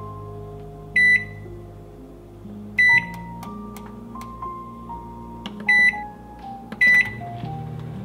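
Toshiba microwave air-fryer combination oven's control panel giving four short, high beeps as its buttons and dial are worked to set the air-fry temperature.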